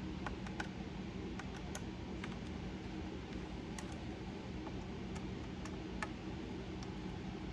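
Scattered light clicks and taps of small parts being handled inside an open laptop during a drive swap, over a steady low hum.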